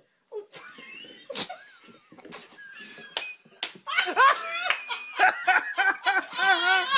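People laughing, quietly at first among a few sharp clicks, then loud, hearty laughter from about four seconds in.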